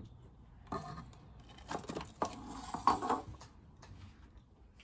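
Plastic ice-lolly mould and frozen lollies being handled: irregular light knocks, clicks and scrapes as the lollies are pulled from the mould and set down on a ceramic plate, loudest about three seconds in.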